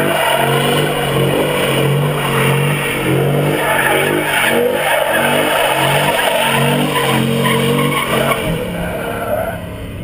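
Ford Raptor pickup's 6.2-litre V8 revving hard, its pitch climbing and dropping over and over as the truck spins donuts, with the tyres squealing and skidding on the asphalt. The engine note fades and the sound gets quieter near the end.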